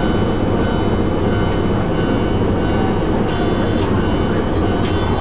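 Toyama Chiho Railway Tateyama Line train running, a steady rumble of wheels on rail, with two short high-pitched squeals, one about three seconds in and a longer one near the end.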